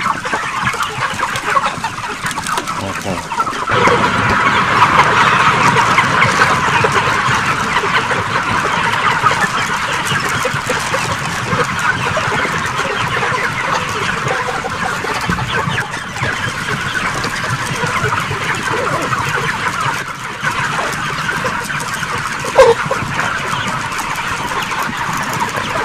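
A flock of broiler chickens clucking and chattering together, a dense continuous din that grows louder a few seconds in. One brief sharp sound stands out near the end.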